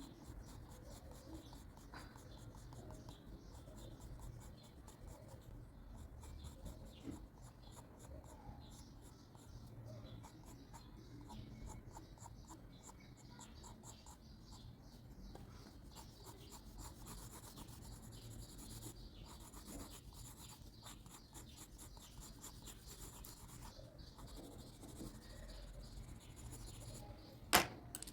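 Pencil scratching on paper in many quick short strokes, with one sharp click near the end.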